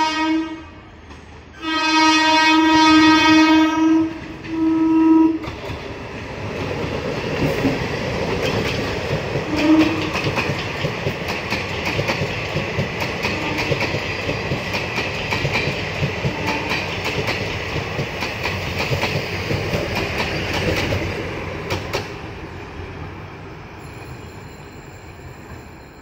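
DEMU train horn sounding three blasts on one pitch, the middle one about two and a half seconds long. Then the train runs past close by, its wheels clattering over rail joints and points for about fifteen seconds before the sound fades.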